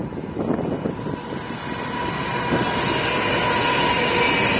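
Pacific National diesel-electric locomotives heading a freight train approach and pass close by, their engines running under power with a steady whine. The sound grows steadily louder as they draw level.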